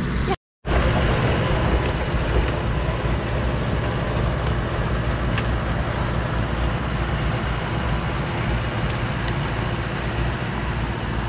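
Tractor engine running steadily under a dense rushing noise, breaking off briefly just under a second in.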